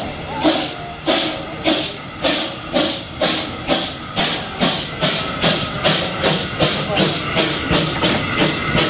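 Narrow-gauge steam tank locomotive 'Hoya' pulling away with its train: loud, even exhaust chuffs that quicken from under two to about three a second as it gathers speed, over the hiss of steam blowing from the cylinders.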